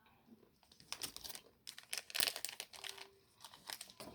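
Candy bar wrapper being torn open and crinkled in irregular bursts of crackling, loudest about two seconds in.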